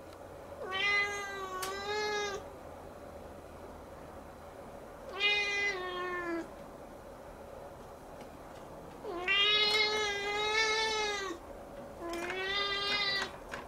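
Siamese kitten meowing: four long, drawn-out meows, each lasting one to two seconds, with pauses of a few seconds between them.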